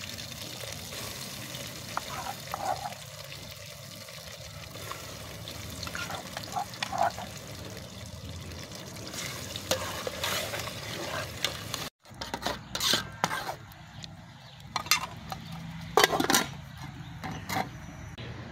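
A metal spoon scrapes and taps against a clay bowl and an aluminium cooking pot as pepper-tomato paste is scooped in and stirred, over a steady simmering hiss. Near the end come sharper metal clinks as the aluminium lid goes onto the pot.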